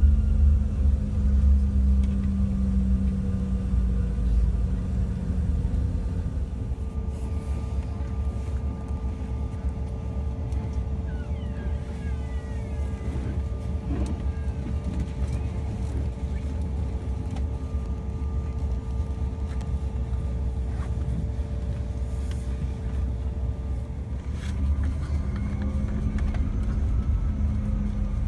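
Cabin noise inside a Bombardier CRJ-700 regional jet: a steady low rumble from its rear-mounted GE CF34 turbofans at ground idle. A droning hum rides on it for the first few seconds, drops away, and comes back near the end.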